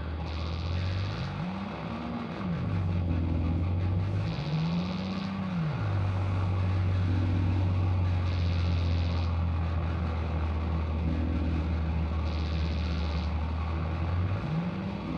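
Experimental electronic noise improvisation: a low, engine-like droning tone that swoops up in pitch and back down twice and starts rising again near the end, with a short burst of high hiss about every four seconds.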